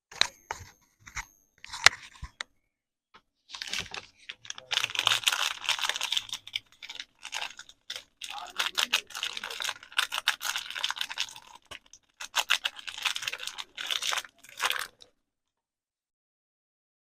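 Soap packaging being crinkled and torn open: a few light taps in the first two seconds, then dense crinkling and tearing with short pauses that stops a couple of seconds before the end.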